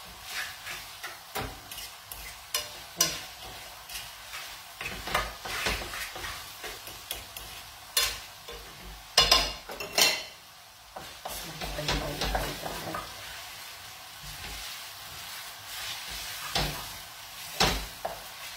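Spaghetti in tomato sauce frying and sizzling in an aluminium frying pan as it toasts on the pan's base, with repeated scrapes and knocks of a utensil stirring and turning the pasta against the pan. The sharpest knocks come about eight, nine to ten and seventeen seconds in.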